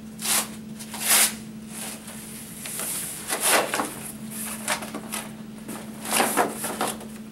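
Large cardboard furniture carton being opened by hand: the flaps and lid panel scrape and rustle in several short bursts. A steady low electrical hum runs underneath.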